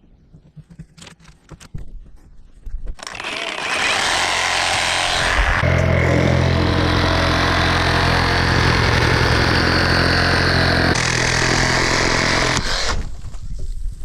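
A power tool's motor starts about three seconds in and runs steadily for about ten seconds, with a few light knocks before it starts.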